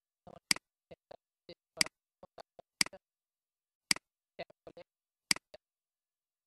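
Computer mouse clicking: five sharp clicks spaced irregularly about a second apart, with softer clicks in between.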